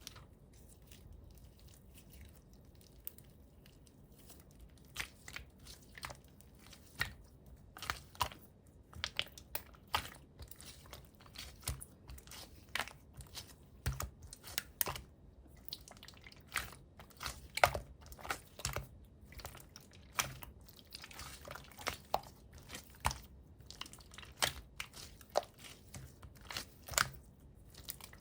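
Clear slime being pressed and squeezed by hand, giving off irregular sharp clicks and pops of trapped air. They are sparse at first and come thicker from about five seconds in.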